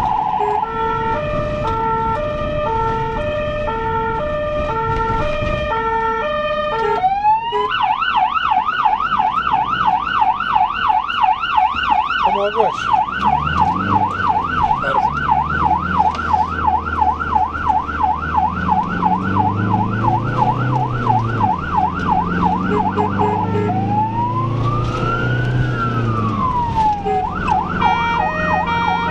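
Ambulance electronic siren running continuously and switching modes: a two-tone hi-lo for the first several seconds, then a quick sweep at about seven seconds into a fast yelp, a single slow wail rising and falling near the end, and a fast warble again at the close. The vehicle's engine rumbles underneath as the ambulance pulls away from a junction and speeds up.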